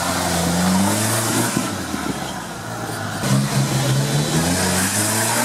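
Mitsubishi Pajero 4x4's engine revving hard under load while driving off-road, its pitch rising and falling; it eases off about two seconds in, then climbs again just past three seconds.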